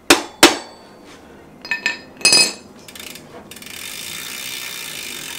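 Two sharp taps on a BMX chainring, knocking it over to center it on the crank so the chain stops going tight at one spot, followed about two seconds in by metallic clinks with a ringing tone. From about three seconds in, a steady hiss of the chain running over the sprocket as the crank is turned to check the tension.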